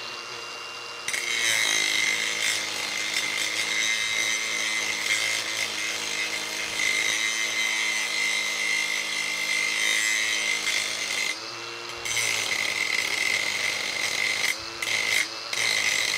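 Hilti AG 4S-A22 22 V brushless angle grinder with a Ryobi grinding wheel grinding steel. The motor spins freely at first, then the wheel bites into the metal about a second in, giving a loud, gritty grinding noise with a high ring over the motor's whine. The wheel lifts off once around the middle, and the motor note dips and recovers. Near the end there are two brief lifts before the grinding goes on.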